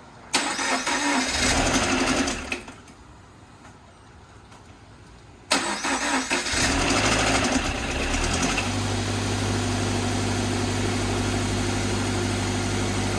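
A 2013 Scion FR-S's freshly rebuilt 2.0 L flat-four engine is started for the first time. The starter cranks for about two seconds without catching. On a second crank a few seconds later the engine fires, revs briefly, then settles to a steady, smooth idle. A little knock at startup is put down by the mechanic to the timing chain probably lacking oil pressure.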